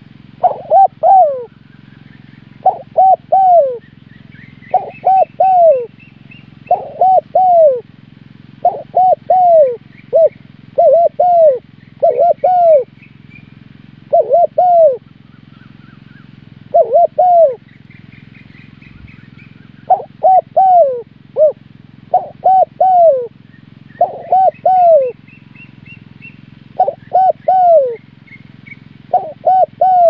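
Spotted dove cooing: a phrase of three or four short, downward-curving coos repeated about every two seconds, with one longer pause partway through. Fainter high chirps from another small bird rise in short series behind it.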